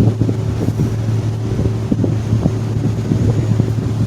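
Staten Island Ferry's engines droning as heard from inside the passenger cabin: a loud, steady low hum with an irregular rumble over it.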